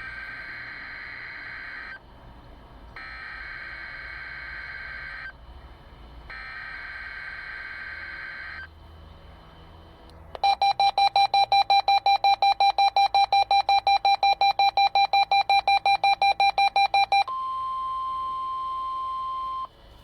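NOAA Weather Radio Required Weekly Test alert signal: three bursts of SAME digital header data, each about two seconds long and a second apart. After a short pause comes about seven seconds of rapid beeping, about five beeps a second, and then the steady 1050 Hz warning alarm tone for about two and a half seconds, cutting off suddenly.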